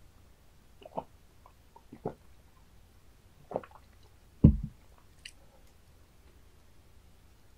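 Close-miked mouth sounds of a man drinking water: a few separate wet gulps and swallows, roughly a second apart. A much louder dull thump comes about four and a half seconds in.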